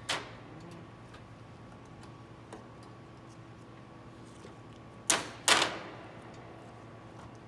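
Heavy wire cutters snipping the copper-wound bass strings of an antique Erard piano: a sharp snap just after the start, a faint click about halfway, then two loud snaps about half a second apart around five seconds in, each with a brief metallic ring.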